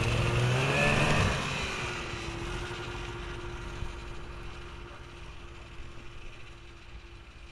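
Motor vehicle engine rising in pitch over the first second or so, then fading, with a faint steady hum that lingers until near the end.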